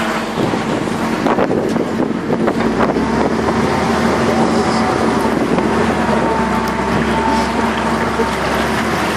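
Backhoe loader's diesel engine running steadily as it drives through deep floodwater, with water washing around the wheels and wind buffeting the microphone.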